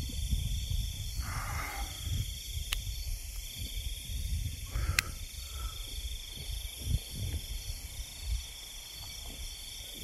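Wind gusting against the microphone in uneven low rumbles, over a steady high chirring of night insects. There are a couple of sharp clicks, one about three seconds in and one about five seconds in.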